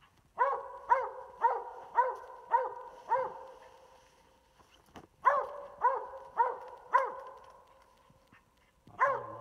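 A coonhound barking treed at a tree holding raccoons: a run of six barks about two a second, a pause, four more, then one more near the end.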